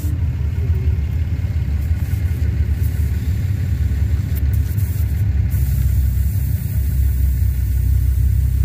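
Car engine idling steadily nearby, a constant low rumble.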